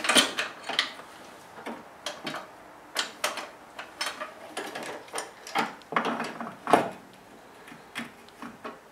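Irregular clicks and knocks, two or three a second, of a brake master cylinder and its plastic fluid reservoir being handled and worked into place in the engine bay. Metal and plastic parts bump together, with the sharpest knocks near the start and about two-thirds of the way through.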